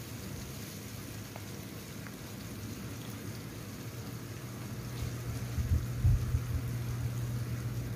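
Tofu pieces sizzling and crackling as they shallow-fry in hot oil in a frying pan, over a steady low hum. A wooden spatula turns them, with a few low knocks about five to six seconds in.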